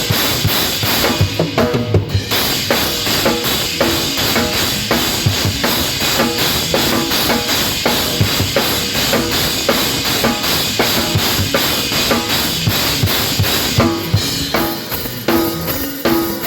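A live gospel band playing, led by a drum kit: steady cymbal wash over kick and snare hits, with a band underneath. The cymbals drop out briefly about two seconds in, and near the end they thin out and held chords come forward.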